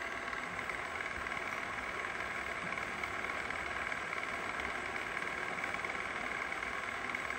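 MAS VR 4 radial arm drill running with its spindle power feed engaged at the minimum feed rate: a steady, even mechanical running sound from the drill head's motor and gearing.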